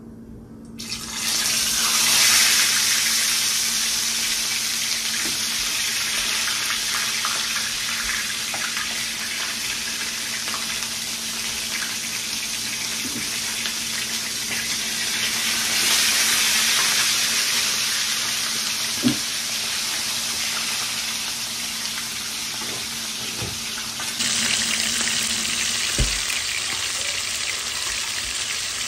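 Whole fish dropped into hot oil in a frying pan, setting off a loud, steady sizzle about a second in; the sizzling surges again about sixteen seconds in as a second fish goes into the pan.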